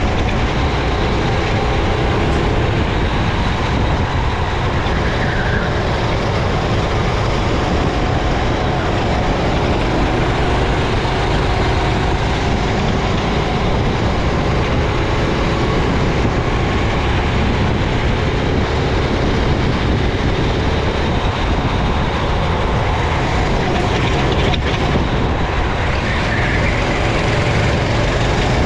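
Racing kart engine running hard on an onboard recording, its pitch rising and falling gently with the revs. It is mixed with dense, steady wind and track noise.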